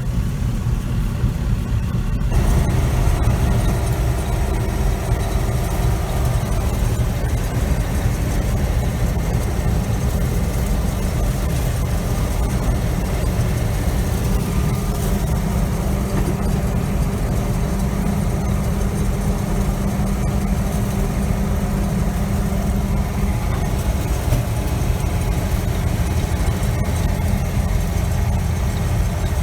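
John Deere 3300 combine running steadily, its engine tone steady underneath. About two seconds in, a second layer of machinery noise comes in and keeps going.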